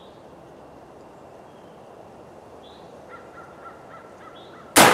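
A single shotgun shot near the end, from a 3-inch shell of 2 oz of BB-size tungsten (TSS) shot: one sudden loud report that rings and echoes on afterwards. Before it there is only a quiet outdoor background.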